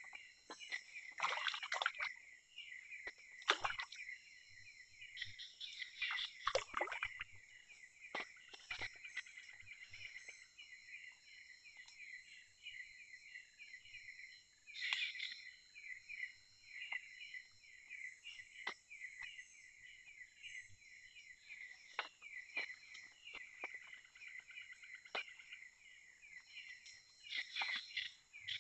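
Forest insects chirping in a steady rhythm over a continuous high-pitched insect drone, with a few sharper calls or clicks over them.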